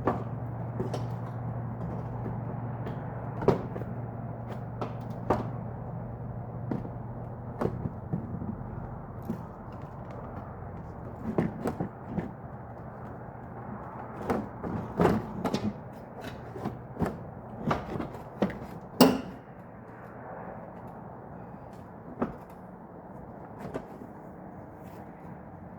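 Plastic front bumper cover of a 92-95 Honda Civic being handled and fitted onto the car: scattered knocks, taps and clicks, coming in a quick cluster past the middle with the sharpest knock about three quarters of the way through. A low steady hum sits underneath and fades out in the first half.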